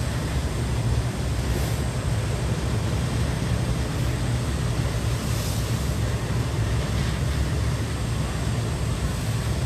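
Steady low rumble aboard a boat at sea as waves hit it, with wind and water noise over the top.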